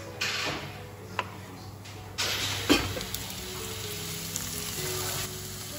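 A knife cuts through a tomato on a plastic chopping board with a few light knocks. About two seconds in, diced tomatoes land in a hot frying pan of sautéing carrot and onion with one sharp knock and start sizzling loudly.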